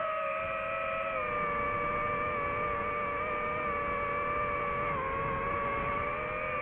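Multirotor drone's motors and propellers whining steadily in flight, a sustained pitched hum with overtones that dips slightly in pitch about a second in and again near the end as the motors change speed.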